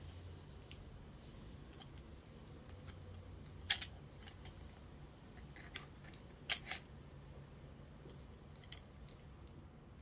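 Handling clicks and taps of small metal-and-plastic camera mount parts as a phone clamp is fitted onto a ball head, over a faint steady low hum. Two sharper, louder clicks come a little under four seconds in and again about two and a half seconds later.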